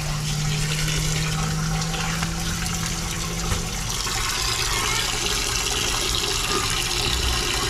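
Tap water pouring and splashing into a concrete sink basin crowded with live armored catfish. A steady low hum runs under it and stops about three and a half seconds in.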